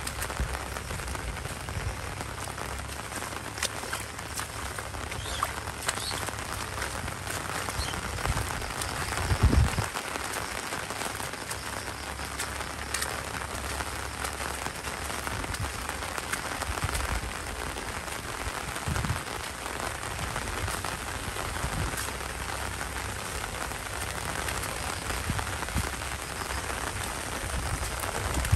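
Steady rain falling, a dense even hiss with scattered sharper drop ticks. A few low thuds sound through it, the loudest about nine and a half seconds in.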